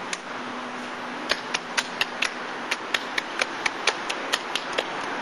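Hands slapping together in a quick, even rhythm, about four sharp claps a second, starting about a second in.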